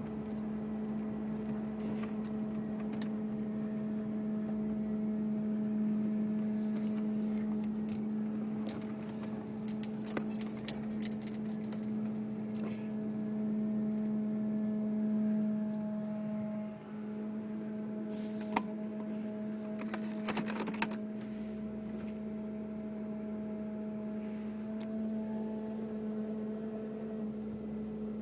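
Steady hum from the engine compartment of a 2002 Mercury Grand Marquis, holding one pitch with fainter overtones. It is the random, intermittent noise that the owner finds unrelated to bumps, speed or gear. The hum dips for a moment about 17 seconds in, and a few light clicks come around ten seconds in and again around twenty.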